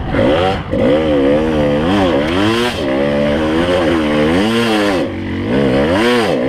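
Kawasaki KDX 220's two-stroke single-cylinder engine revving up and down over and over as the dirt bike is ridden.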